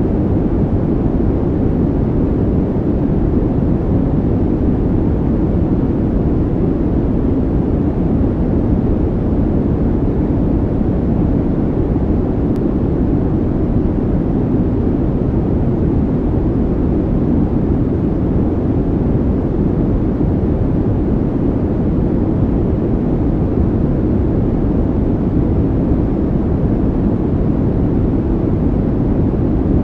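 Steady, deep rushing noise with no tone or rhythm, a calming background noise track.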